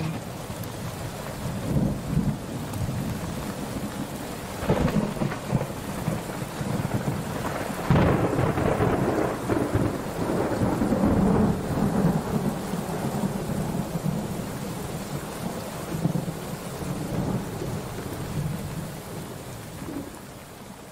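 Thunderstorm: steady rain with several rolls of thunder, the loudest about eight seconds in, fading out over the last several seconds.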